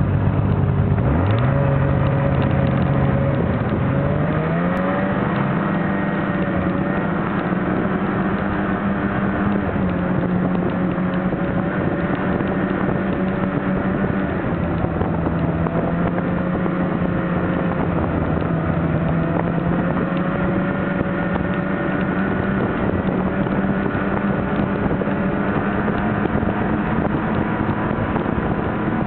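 Snowmobile engine running under throttle: its pitch climbs about a second in and again around four seconds in, then holds fairly steady with small rises and dips.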